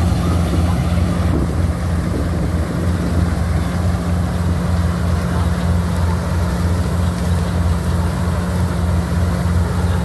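Combine harvester's diesel engine and threshing machinery running steadily while harvesting: a continuous low drone with an even, regular pulse in its hum.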